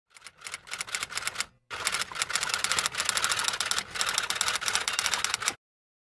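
Typewriter sound effect: a fast, steady run of keystroke clicks, with a brief break about a second and a half in, stopping abruptly near the end.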